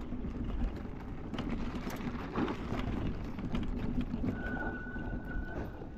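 Electric dirt bike with a 72 V hub motor riding over a rough dirt trail: a steady rumble of tyre and wind noise with scattered knocks from bumps, and a faint steady high whine for about two seconds near the end.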